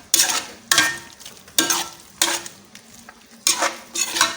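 A spoon stirring egusi soup in a pot, working the ugu leaves in. There are about six scraping strokes against the pot, with a short pause midway.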